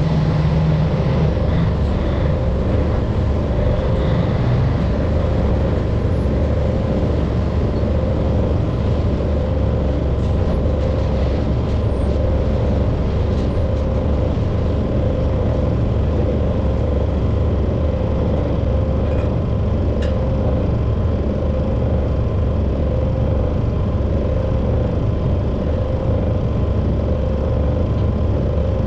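Engine of a loading machine running steadily as it pushes up a heap of sunflower pellets: a constant low drone with a steady hum.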